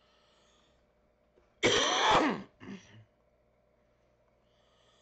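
A man coughing: one loud, harsh cough about one and a half seconds in, followed by two short, weaker coughs.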